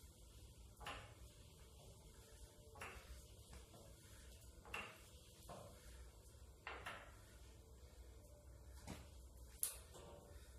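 Hand-cranked tube roller bending galvanized steel tube: a faint creak about every two seconds as the crank is worked, with one sharp click near the end.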